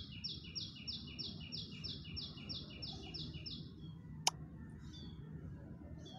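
A bird calling in a quick, even series of about a dozen chirps, about three a second, which stops after about four seconds. A single sharp click comes a little after four seconds in and is the loudest sound in the stretch.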